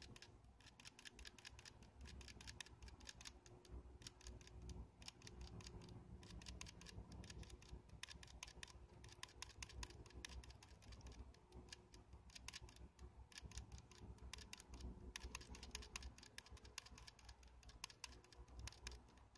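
A hamster licking the metal spout of a water bottle makes quick, faint clicks, several a second, broken by a couple of short pauses.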